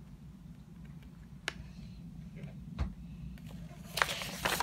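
Quiet handling of a paper instruction booklet: a sharp click about a second and a half in, a dull knock near three seconds, then paper rustling near the end, over a low steady hum.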